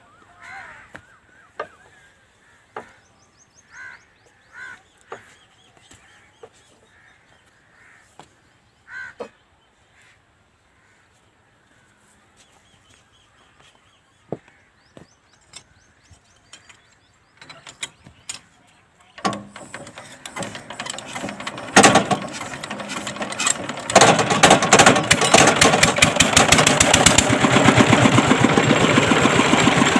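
Scattered light knocks and clicks, then about two-thirds of the way in the engine driving the tube-well boring rig starts and picks up. It runs loud and steady with a fast, even firing beat through the end.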